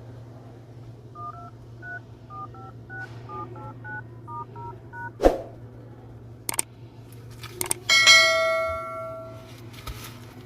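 Smartphone dial pad sounding touch-tone beeps as keys are tapped in quick succession, about sixteen presses, on the freshly replaced screen. A few sharp clicks follow, then a loud chime-like ringing tone that fades over about a second and a half.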